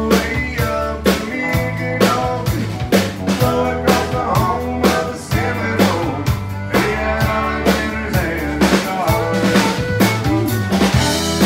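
Live country band playing: a drum kit keeps a steady beat of about two hits a second under bass, acoustic and electric guitars and fiddle, with the lines bending and sliding.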